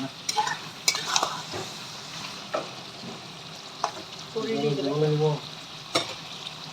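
Duck curry meat frying in oil with spices: a steady sizzle while a utensil stirs it and knocks sharply against the pan several times. A short hum, like a voice, sounds about four and a half seconds in.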